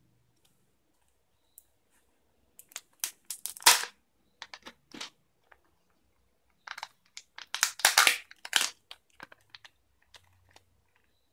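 A Kinder Joy plastic egg and its foil seal being handled and opened by hand: sharp crinkling and tearing in two spells, the first about three seconds in and the second around eight seconds in.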